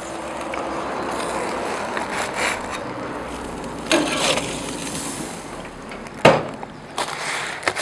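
Aluminium foil package being cut open with a knife on a wooden board, the foil crinkling and tearing, with a couple of sharp knocks near the end.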